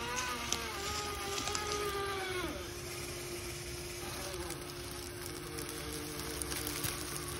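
Axial SCX6 Trail Honcho RC crawler's electric motor and drivetrain whining as it crawls under throttle; the pitch wavers, then drops about two and a half seconds in and settles into a steady lower hum.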